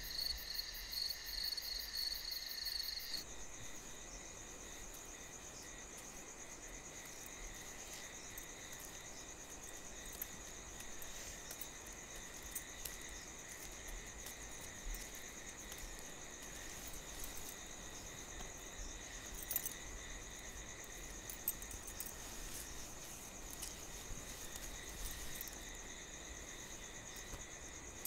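Crickets chirring steadily in a night ambience, a low even drone of high trills. Soft music at the start cuts out about three seconds in.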